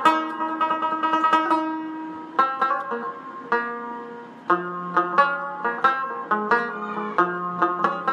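Background music: a plucked string instrument playing a quick melody. It thins out to a few notes in the middle, then picks up again at full pace.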